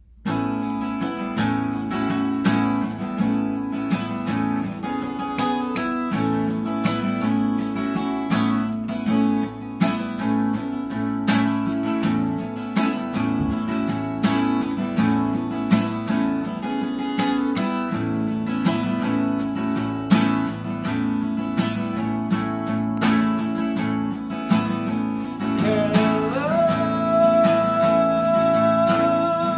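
Capoed steel-string acoustic guitar strummed in a steady rhythm, playing a song's chordal intro. Near the end a man's voice comes in singing, gliding up to a long held note.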